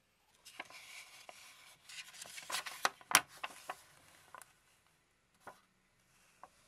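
Paper rustling and crackling as a folded quick start guide leaflet is handled and opened out, with a sharp crackle about three seconds in. Two light ticks follow near the end.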